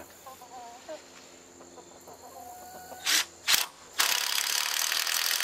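Cordless drill driving a screw into a wooden board: two short bursts about three seconds in, then a steady run from about four seconds in. Chickens cluck faintly near the start.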